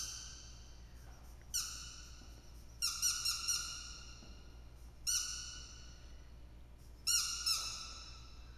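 Rubber squeaky dog toy squeezed again and again, giving sharp high squeaks that each hold a steady pitch for about half a second: single squeaks at first, a quick run of four about three seconds in, one more, then another quick run near the end.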